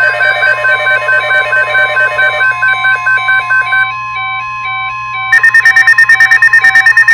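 Weather alert radios sounding their alarms together: overlapping electronic beeps at several pitches over a steady warning tone. About five seconds in the steady tone stops and a loud, rapid beeping, about seven beeps a second, takes over, then cuts off.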